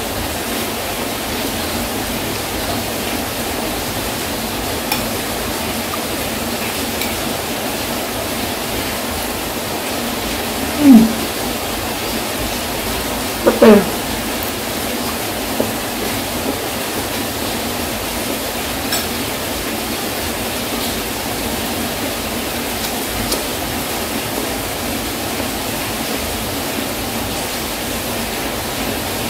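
Heavy rain falling, a steady unbroken hiss. About 11 and 14 seconds in, two short, loud voice-like sounds with sliding pitch rise above it, and a few faint clicks are scattered through.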